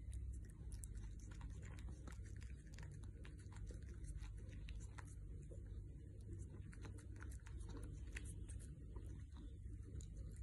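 A small puppy chewing and licking a treat held in a person's fingers: faint, scattered wet clicks and small crunches over a low steady room hum.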